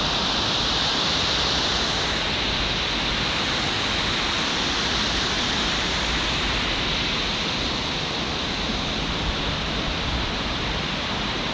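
River water pouring over a weir: a steady, even rushing.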